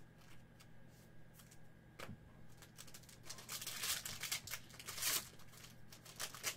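Faint rustling and crinkling of trading-card packaging and cards being handled, with scattered light ticks, busiest about halfway through.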